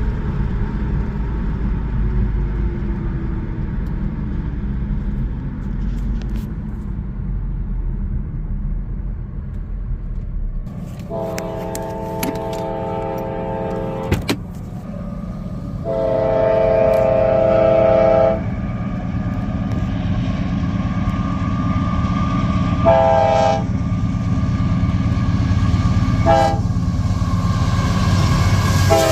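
A Nathan K5LA five-chime air horn on a CSX AC44CW locomotive sounds two long blasts, then two short ones, with another starting at the very end. The low rumble of the approaching train runs underneath.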